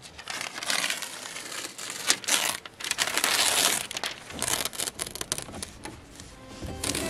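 Paper masking sheets being pulled off from around a freshly painted caravan vent grille: the paper crinkles, crumples and tears loose in irregular rustles, loudest in the middle.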